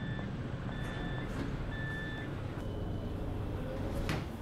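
Tram interior with the low rumble of the tram and its door warning signal: three evenly spaced beeps about a second apart, then a single higher beep. A sharp knock near the end, likely a basketball bouncing on the tram floor.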